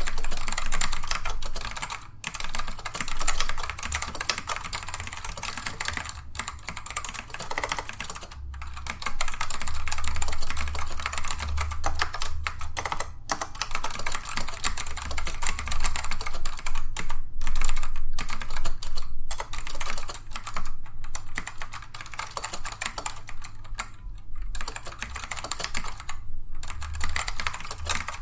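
Typing on a Dell AT102W keyboard with black Alps switches: a dense, continuous clatter of keystrokes from tactile switches that do not click, broken by short pauses every few seconds.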